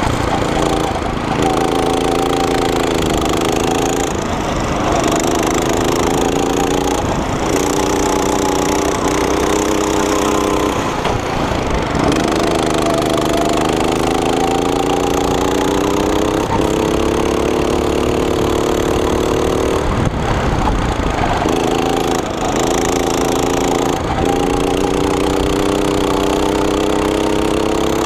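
Small single-cylinder engine of a rental go-kart running at full throttle, its pitch climbing slowly down each straight and dropping sharply several times as the driver lifts off for corners.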